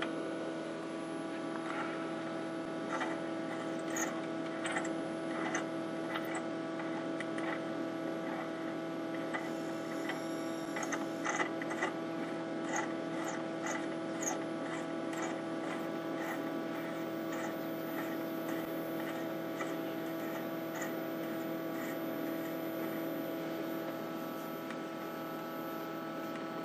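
Admiral 20B1 tube television running with a steady hum and overtones, and a string of light ticks through the middle. About ten seconds in, a faint, very high-pitched whine from the horizontal circuit sets in while the horizontal coil is being tweaked to get the picture to lock.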